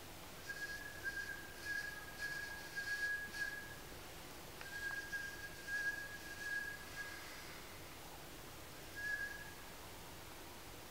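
A performer's improvised mouth whistling in a sound-poetry duet: a single high, steady whistled note held for about three seconds, broken off, held again for about three seconds, then a short final note near the end, with soft breathy hiss around it.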